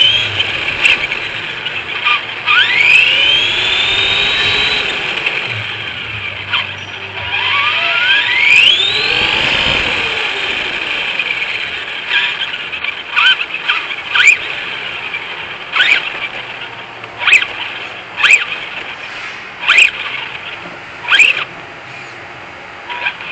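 Brushless electric drive of an Arrma Typhon RC buggy whining, rising steeply in pitch twice as it accelerates hard. Then comes a run of short squealing chirps, about one a second, as the throttle is blipped.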